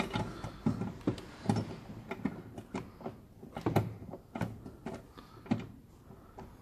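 Irregular plastic clicks and knocks as the H7 dipped-beam bulb holder is twisted and seated back into a Vauxhall Insignia headlight, with the sharpest knocks about one and a half and nearly four seconds in.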